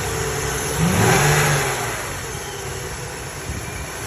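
Car engine running, revved briefly about a second in, then settling back toward idle.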